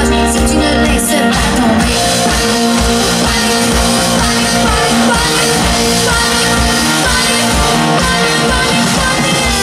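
Live rock-pop band playing loudly, with drum kit and electric guitar, and a woman singing over it.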